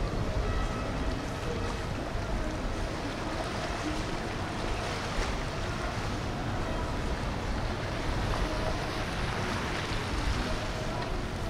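Boat engine running as a boat passes on the river, a steady drone mixed with the wash of water, and wind buffeting the microphone.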